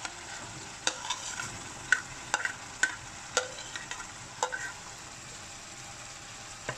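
Chopped green capsicum being scraped off a plate with a metal spoon into a pan of tomato masala: a series of sharp clicks and scrapes of the spoon against plate and pan over the first four and a half seconds, over a steady low sizzle from the pan.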